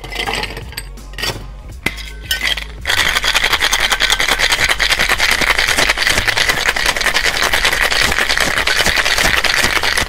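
Ice cubes clattering as they are tipped from the metal tin into the glass half of a Boston shaker. From about three seconds in, ice rattles hard and fast inside the sealed shaker as it is shaken.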